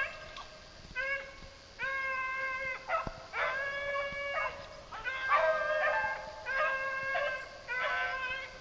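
Beagles baying on a rabbit's trail: a string of about seven long, drawn-out bawls, some of them overlapping from more than one hound. This is the sound of the pack in full cry, running the rabbit.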